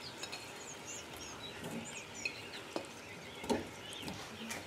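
Faint chirping of small birds, many short rising and falling calls. Twice in the second half come soft knocks of potato wedges being set into a stainless steel pot.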